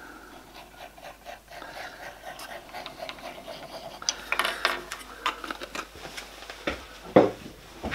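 Plastic CA glue bottle being squeezed along a wooden runner, with soft rubbing, small clicks and handling noise, and one sharp knock about seven seconds in.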